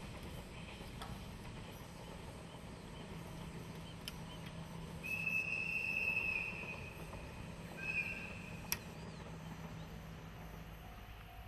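Faint drone of a distant DE10 diesel locomotive hauling its train, fading out near the end. A high, steady whistle blast lasts about two seconds around the middle, with a second short blast about three seconds later.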